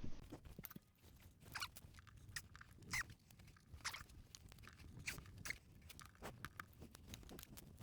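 Faint, scattered small clicks and rubbing of a small screw being worked into the end of a new rubber fuel hose to plug it.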